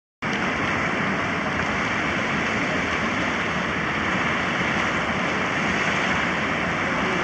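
Steady rushing of a muddy river in flood, its water streaming over the riverside road and embankment; the sound cuts in abruptly just after the start.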